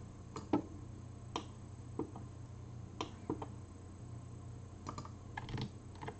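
Scattered clicks of a computer mouse and keyboard keys during desktop editing, about a dozen short, sharp clicks at irregular spacing. A faint steady low hum runs underneath.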